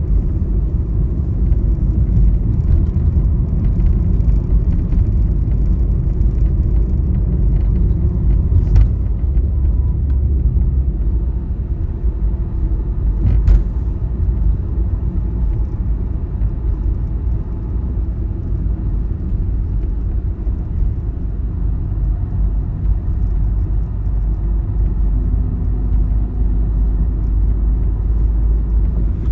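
Vehicle travelling along a highway: a steady low road and engine rumble, with two brief sharp knocks about nine and thirteen seconds in.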